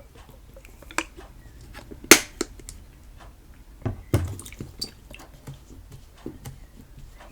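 Homemade PVA-glue slime being mixed by hand with activator: a run of small wet clicks and sticky squelches, with two louder smacks about two and four seconds in.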